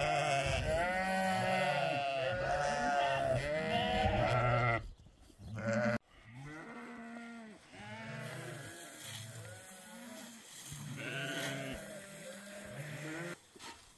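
Mixed flock of sheep and goats bleating, many calls overlapping. The bleating is loudest in the first five seconds, breaks off briefly about six seconds in, then goes on more faintly.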